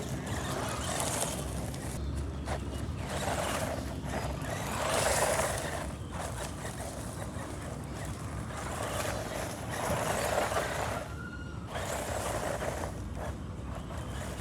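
SCY 16102 1/16-scale 4x4 RC car running in repeated bursts, its motor and tyres swelling and fading every couple of seconds over a steady low rumble.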